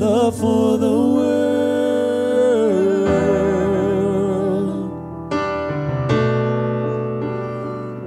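Slow worship song: a singer holds long notes with a wavering vibrato over sustained piano chords. The voice stops about five seconds in, and the piano goes on alone, with fresh chords struck a few times.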